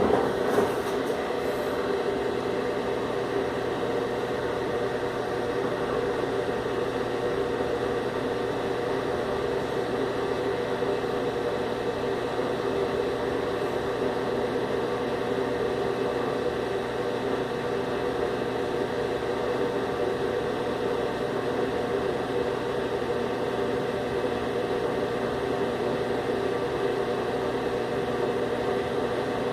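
Consul Maré 7.5 kg washing machine running with a steady mechanical hum; a rattling clatter fades out in the first couple of seconds.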